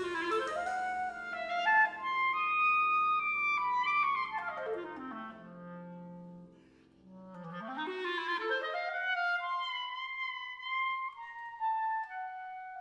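Solo clarinet playing fast runs up to high held notes and down to a low note, over steady low chords from the band. The chords stop about seven seconds in, and the clarinet climbs again alone to held notes that step downward.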